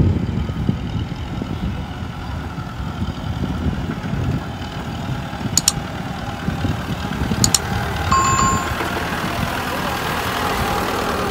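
Kubota farm tractor's diesel engine running steadily as it drives past, towing a loaded trailer. There are a few sharp clicks around the middle and a brief high beep a little after.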